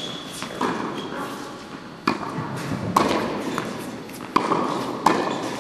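Tennis balls struck with a racquet and bouncing on a hard indoor court during a forehand drill: several sharp knocks, the loudest spaced under a second to about a second and a half apart. Each rings on in the hall's echo.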